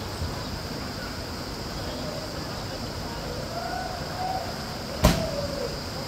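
Steady outdoor background noise with faint distant voices or calls, and one sharp knock about five seconds in.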